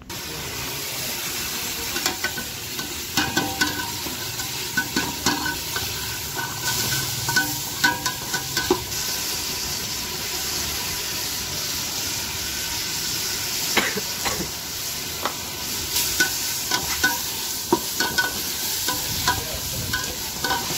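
Mutton frying in masala in an aluminium pot. A steady sizzle starts up as the meat goes into the hot pot, and a perforated metal ladle stirring it scrapes and clicks against the pot at irregular moments.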